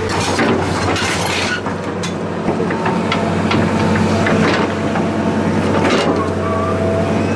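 An engine running steadily at a constant low drone, with scattered short knocks and scrapes over it.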